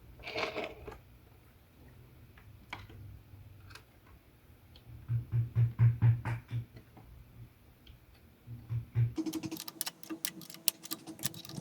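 Small sharp clicks and ticks of small nuts, bolts and tools being handled while fitting a part to a model locomotive. A low buzzing pulses for a couple of seconds around the middle, and a fast run of clicks starts near the end.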